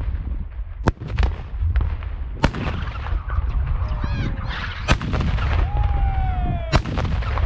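Black-powder Böller salute cannons firing: four loud bangs and a fainter one, spaced about one and a half to two and a half seconds apart. Wind rumbles on the microphone throughout.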